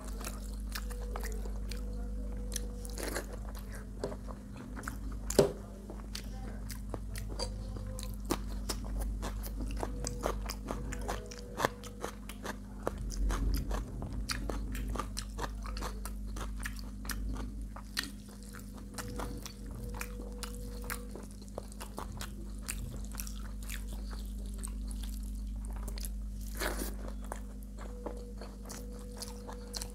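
A person chewing and biting food close to the microphone: many small wet mouth clicks with occasional louder crunches, over a steady low hum.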